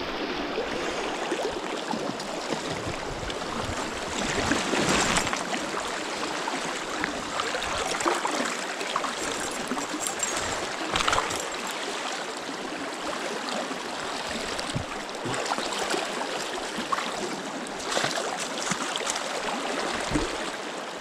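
River rapids rushing: a steady wash of fast-moving water, with a few short splashes or knocks now and then.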